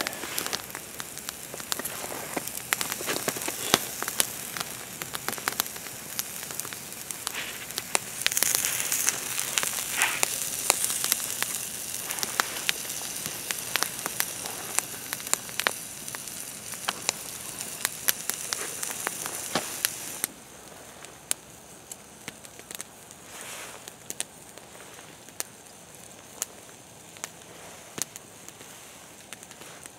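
Bacon and pork chops sizzling on a fire-heated rock, with the wood fire crackling and popping in dense clicks. About twenty seconds in the sizzle drops away abruptly, leaving only the fire's sparser pops and crackle.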